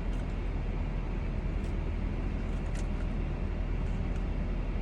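Steady low rumble of a car, heard from inside the cabin, as of the engine idling while parked, with a few faint clicks.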